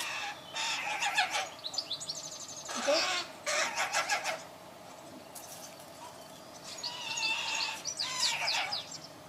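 Young carrion crow giving harsh, rasping begging calls in quick bursts while being hand-fed. Several bursts come in the first half, then a lull of about two seconds, then two more bursts near the end.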